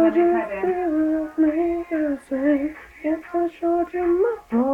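A woman singing wordlessly in a string of short held notes that bend and break, with a rising slide near the end.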